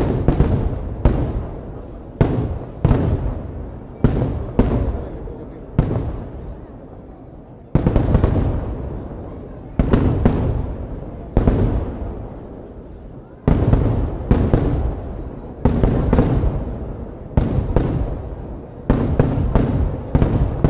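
Kerala temple fireworks (vedikkettu) going off: heavy explosions one after another, roughly every half second to second, each with a rumbling tail that dies away. There are short lulls between volleys.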